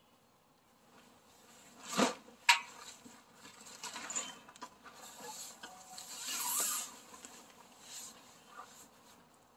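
A synthetic boat cover rustling and swishing as it is pulled and smoothed over a boat. Two sharp clicks half a second apart come about two seconds in, and a longer rustle comes around six and a half seconds.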